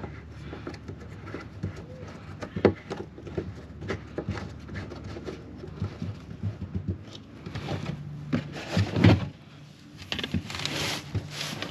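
Scattered clinks and knocks of metal tools and parts being handled, with a louder knock about three seconds in and another about nine seconds in, over a low steady hum.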